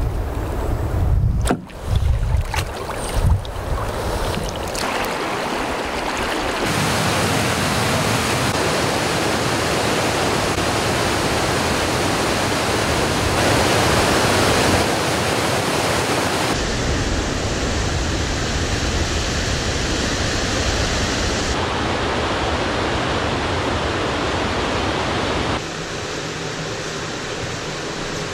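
Rushing river water, likely rapids, as a steady hiss of water noise that changes character abruptly several times. A few knocks and a low rumble come in the first few seconds.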